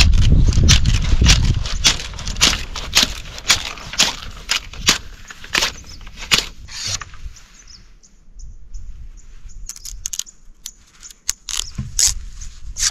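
A run of sharp knocks, two or three a second, that thin out and grow quieter after about seven seconds.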